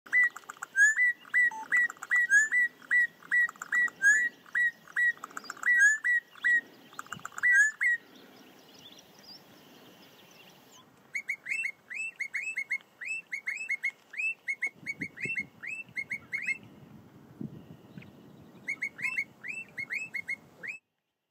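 Bokmakierie singing: fast runs of short, clear whistled notes, two or three a second, with a pause of about three seconds partway through before the runs start again at a slightly higher pitch.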